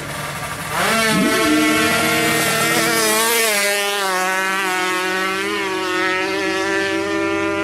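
Two-stroke drag bike engine launching about a second in and running at high revs, a high, buzzy note that holds with small wavers in pitch.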